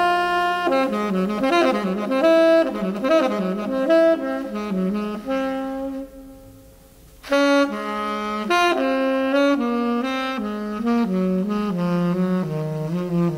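Jazz recording of a tenor saxophone playing a slow ballad with quick runs of notes. It breaks off for about a second around six seconds in, then resumes with phrases that step downward.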